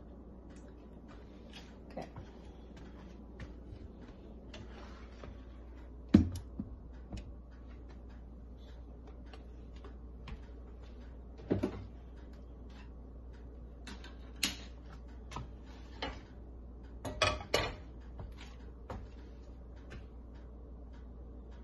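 Kitchen handling sounds: scattered knocks and clicks of utensils and dishes being moved, with some light rustling, the loudest knock about six seconds in and a quick cluster near the end, over a steady low hum.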